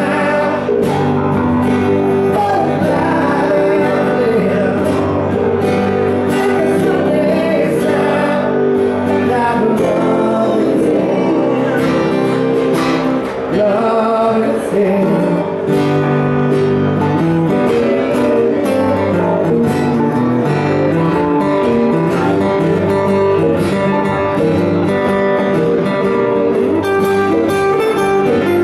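Live acoustic rock song: two acoustic guitars strummed and picked under a man singing.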